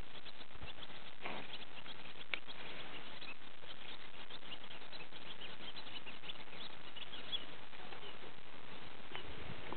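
Miniature horse at very close range: its coat and muzzle rustling and crackling against a hand and near the microphone, a steady patter of small clicks over a hiss, with one soft rush of breath about a second in.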